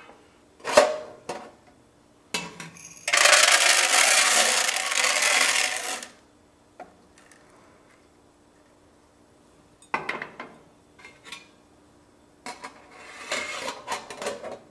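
Popcorn kernels poured from a measuring cup into a metal stovetop popcorn popper, a dense rattle lasting about three seconds. Later come a few clicks and a stretch of metal scraping and clinking as the popper is handled.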